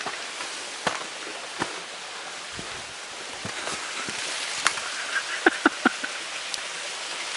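Footsteps and brushing through leafy undergrowth over a rocky trail: scattered snaps and clicks, with a quick run of them a little past the middle, over a steady hiss.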